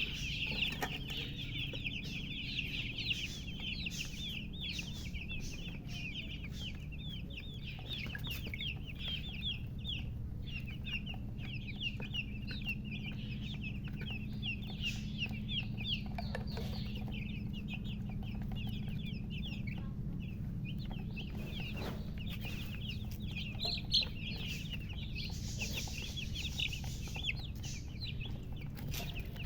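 A group of newly hatched chicks peeping constantly, many short high-pitched peeps overlapping, over a low steady hum.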